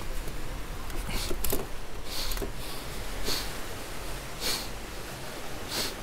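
Slow footsteps crunching in dry sand, about one a second, over a steady low rumble.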